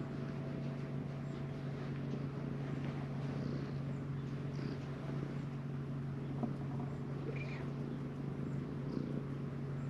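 Calico cat purring steadily while being stroked.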